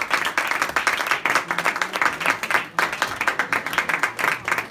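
Audience applause: many people clapping quickly and unevenly together.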